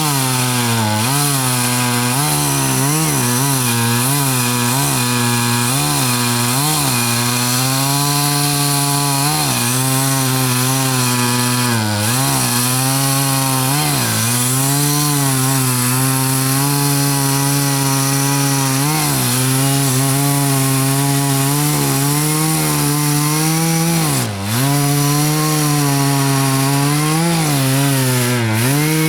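Chainsaw engine running hard, its pitch dipping again and again as the chain bites into wood, with one deep drop near the end.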